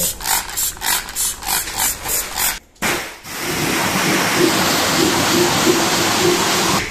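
Trigger spray bottle of engine-parts cleaner spritzing onto a cylinder head, about three quick squirts a second. After a short break about three seconds in, a pressure washer's jet hisses steadily against the head, with a wavering hum underneath.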